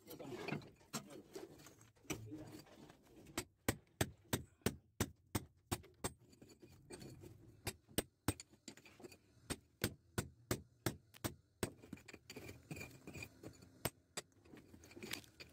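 Steady hammer blows on a steel chisel, chipping brick and mortar: a run of sharp metallic strikes, about three a second, thinning out towards the end.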